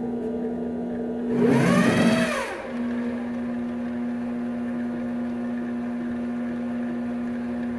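Grizzly G0765 mini-lathe converted to CNC, running with a steady whine. About one and a half seconds in, the stepper motor drives the carriage in a quick move, its whine rising and then falling in pitch over about a second.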